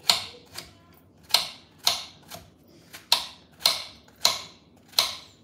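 Kitchen knife chopping courgette on a marble cutting board: sharp knocks of the blade against the stone, about two a second, some stronger than others.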